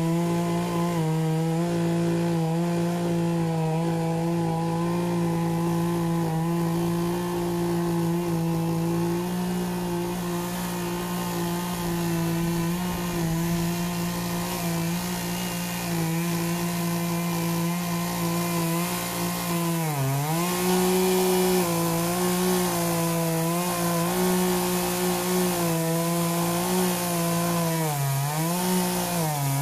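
Poulan 18-inch two-stroke gas chainsaw running at high speed, cutting into a tree stump. Its pitch dips briefly as the chain is loaded about twenty seconds in and twice near the end, then climbs back.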